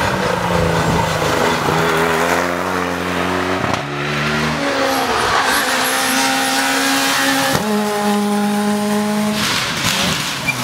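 Rally cars at full race pace on tarmac stages, engines revving hard. The engine note changes abruptly about four seconds in and again about seven and a half seconds in, as one car gives way to the next.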